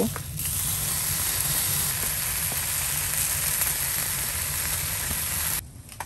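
Meat frying in a cast-iron skillet: a steady sizzle of hot fat, with faint clicks of the utensils, cutting off sharply near the end.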